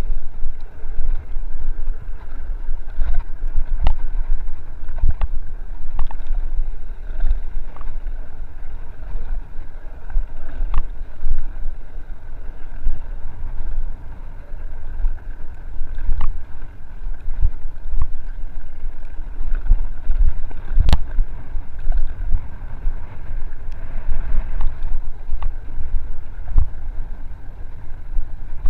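Mountain bike riding fast down a dirt trail: a steady rumble of wind on the microphone and tyres on dirt, with frequent sharp knocks and rattles from the bike over bumps, the loudest about 21 seconds in.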